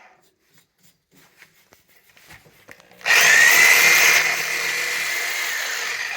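A few faint clicks and taps, then about three seconds in a power saw starts abruptly and runs steadily as it cuts through the old boiler pipe, loudest for its first second.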